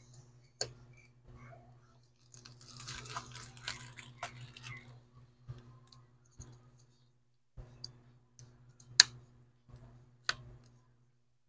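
Small sharp clicks and a scratchy rustle from handling a smartphone's internal parts and tools during reassembly, over a steady low hum.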